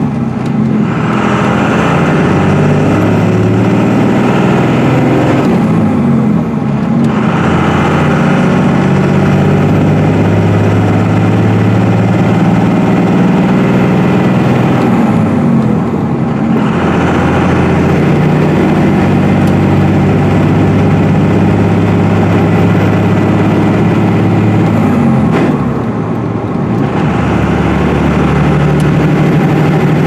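Dodge Ram's 24-valve 5.9 L Cummins inline-six turbodiesel pulling under a heavy trailer load, heard from inside the cab. The revs climb in each gear and drop off briefly at the gear changes, about half a second, six and a half, sixteen and twenty-five seconds in.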